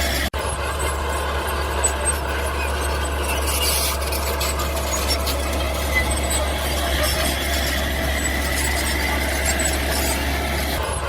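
Mini bulldozer running steadily with mechanical noise and a faint high-pitched whine. The sound drops out for an instant just after the start.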